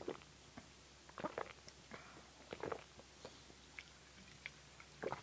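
Close-up swallowing: a string of short, separate gulps as sparkling water is drunk straight from a plastic bottle.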